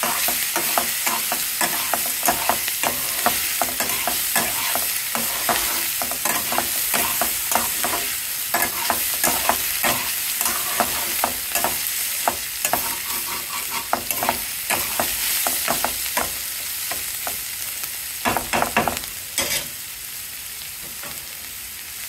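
Metal spatula scraping and tapping against a metal kadai as chopped snake gourd is stirred, over a steady sizzle of the vegetables frying in oil. The scraping stops a couple of seconds before the end, leaving the sizzle.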